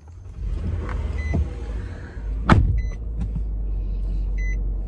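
Low rumble of a phone camera being handled inside a car. There is one sharp click about halfway through, and two short electronic beeps about three seconds apart.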